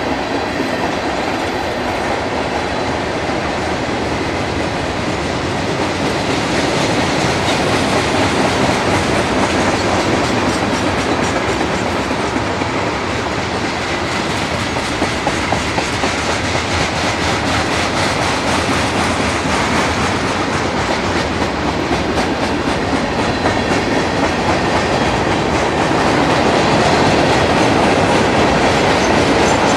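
Freight train cars rolling past: a steady rumble of steel wheels on the rails, with the repeated clickety-clack of wheels passing over rail joints.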